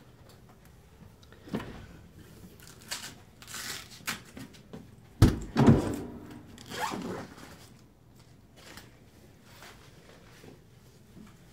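Knocks, thumps and rustles from handling a wooden cabinet door. The two loudest thumps come about five seconds in.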